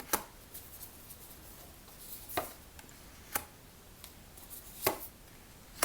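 Tarot cards being handled and laid down: five separate sharp taps and snaps, about a second apart.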